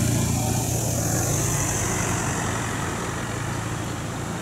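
Motor vehicles passing and moving away: a steady engine rumble that slowly fades.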